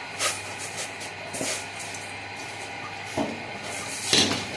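A few short rustles and crunches of crushed vermicelli being handled, over a steady faint hiss, with the loudest rustle near the end.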